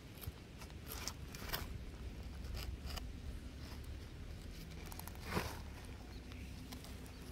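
A tortoise shuffling in a burrow of dry, crumbly clay soil: scattered scrapes and crunches of shell and soil, the loudest about five seconds in, over a low steady rumble.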